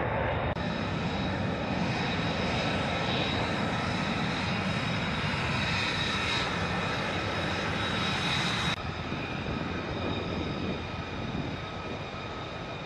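F-35B Lightning II single jet engine (Pratt & Whitney F135) running as the jets roll out and taxi: a steady roar with a high-pitched whine on top. The sound changes abruptly about half a second in and again near nine seconds, and is quieter after the second change.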